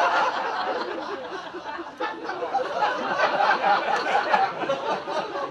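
Audience laughing in response to a joke, loud at first, easing off, then picking up again about two seconds in.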